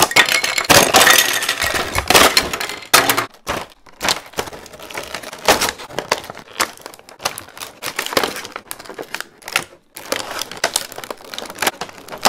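Clear plastic packaging crinkling and crackling as it is handled and pulled apart, with paper and cardboard rustling. The crackles are densest in the first three seconds, then come as scattered crinkles.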